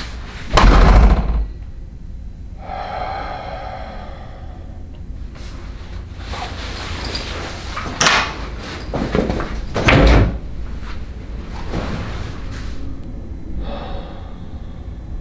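A room door being shut with a heavy thud about half a second in, followed by two more loud knocks or thumps about eight and ten seconds in. Between them, two stretches of a steady pitched sound.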